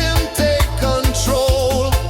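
Chill reggae music: a steady drum beat over a deep, sustained bass line, with a wavering melody line above.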